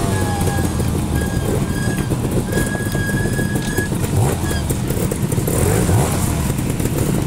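Trials motorcycle engine running with short rising revs as the throttle is blipped, blip after blip.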